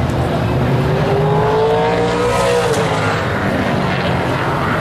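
Super late model race car V8 engine speeding up, its note rising for about two seconds and then dropping sharply as the car passes, over the steady rumble of other race cars circulating.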